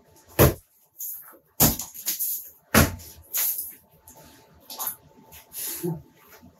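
Old basement ceiling being knocked down with a hand tool: three loud, sharp strikes about a second apart, then lighter knocks and short rattles of falling debris.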